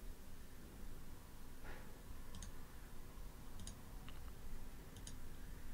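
Computer mouse buttons clicking a few times, sharp short clicks roughly a second apart, over a faint low steady hum.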